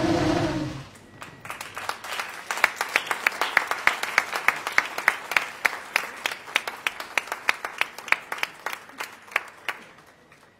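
The McLaren MCL35 Formula 1 car's engine, a Renault 1.6-litre turbo V6, dies away with falling pitch in the first second. Then people applaud with separate, evenly spaced handclaps, about three or four a second, fading out near the end.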